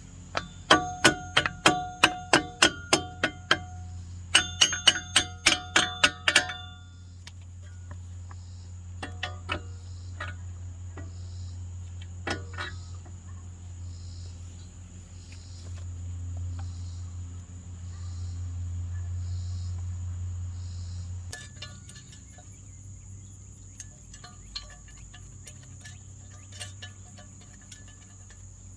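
Hammer blows on metal in two quick runs of ringing strikes, about three a second, followed by a steady low hum that stops about three-quarters of the way through.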